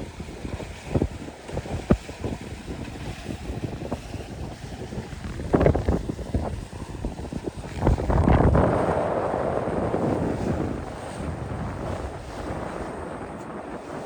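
Wind buffeting the microphone over the sound of water and waves aboard a sailboat, gusting unevenly with a stronger surge about halfway through and a few sharp knocks.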